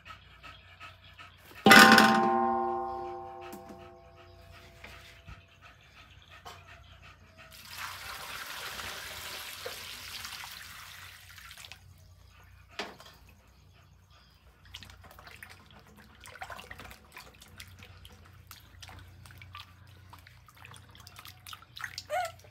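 A large steel wok struck once, ringing loudly with a clear metallic tone that fades over about two seconds, as the carrots go into it. Several seconds later water is poured from a metal bowl into the wok for about four seconds, followed by faint splashing as the carrots are rubbed in the water.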